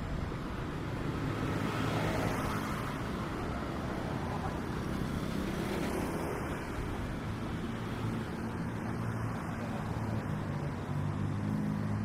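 Street traffic: vehicle engines running and passing, a steady hum of road noise, swelling slightly about two seconds in.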